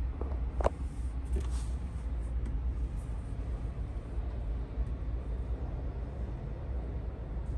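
Low, steady rumble inside a car's cabin. A sharp click comes about half a second in, with a few fainter clicks just around it.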